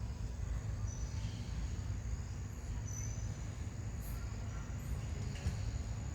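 Outdoor ambience: a steady low rumble, with a thin, steady high-pitched insect drone running throughout and a few faint short chirps.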